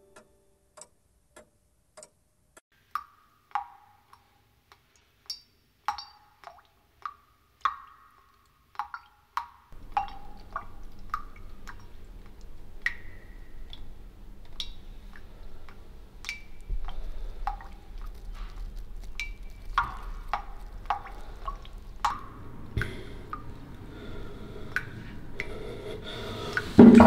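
Water dripping: single drops falling one at a time at an uneven pace, about one to two a second, each a short plink. A faint low steady hum comes in about a third of the way through, and a loud rush of water starts right at the end.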